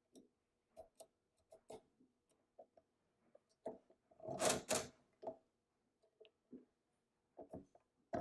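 Dactyle pinwheel mechanical calculator being worked by hand: a run of small clicks as the setting levers are moved, then a louder clatter of the gear mechanism as the crank is turned about four seconds in, then more lever clicks near the end.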